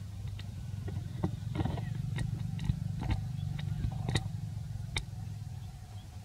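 A low steady rumble with a faint steady hum, overlaid by a scatter of small sharp clicks and a brief rustle between about one and five seconds in.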